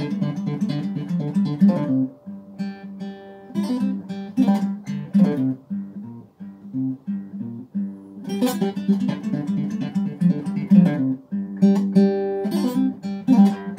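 Acoustic guitar played solo: bursts of strummed chords with notes left ringing between them.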